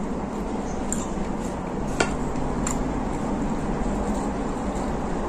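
A few light clicks and clinks of fingers and a utensil picking fried fish off a plate, the sharpest about two seconds in, over a steady background hum.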